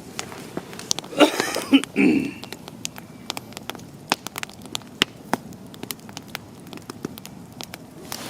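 Wood campfire crackling, with sharp snaps and pops scattered throughout. A brief louder, rougher sound comes between about one and two seconds in.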